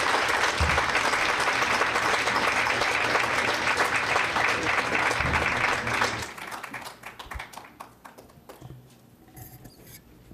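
Audience applauding: steady clapping that dies away about six seconds in, leaving a few scattered claps and quiet room noise.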